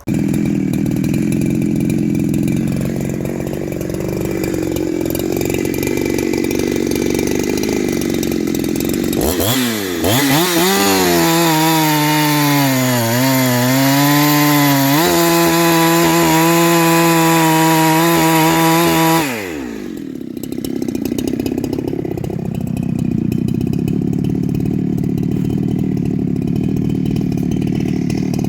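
Ported two-stroke Husqvarna 372XP clone chainsaw comes on suddenly and idles. About a third of the way in it is revved up to high speed, its pitch wavering for a few seconds and then holding steady at wide-open throttle. After about ten seconds it drops back to idle.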